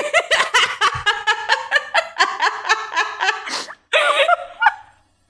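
People laughing: a long run of quick, rapidly repeated laughs, then a shorter burst about four seconds in.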